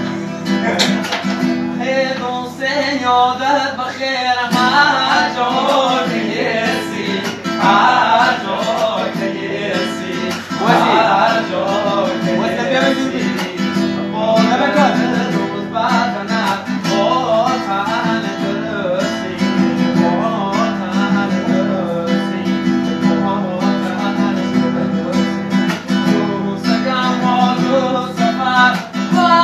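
Acoustic guitar strummed live, with a man's voice singing a melody over it.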